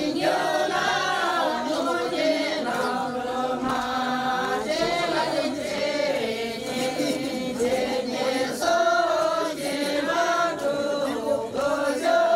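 A group of voices singing a Sherpa shyabru song together, a continuous chant-like choral line.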